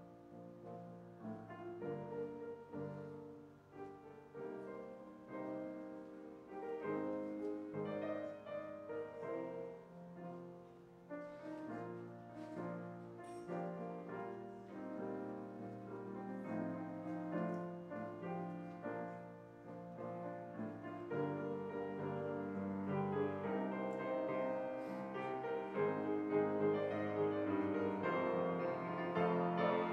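Solo piano playing a slow, gentle piece of sustained chords, growing louder over the last third.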